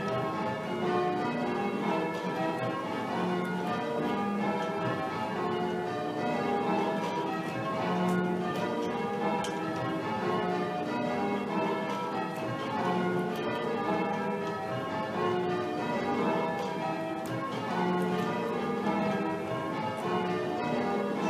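A ring of church bells rung full-circle in call changes: the bells strike one after another in steady, evenly spaced rows, the row repeating over and over without a break.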